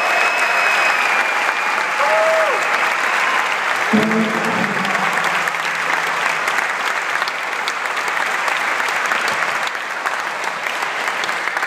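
Audience applauding steadily in a concert hall, slowly dying down toward the end. A voice calls out briefly about four seconds in.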